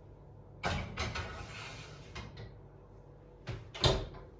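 A metal baking tray is slid onto the oven rack with a scraping rattle lasting a couple of seconds, starting under a second in; near the end the oven door is pushed shut with two knocks, the second the loudest.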